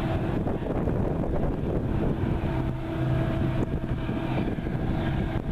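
Wind buffeting the microphone, with a distant diesel locomotive horn sounding faintly over it: one blast ending just after the start and another long blast from about two and a half seconds in.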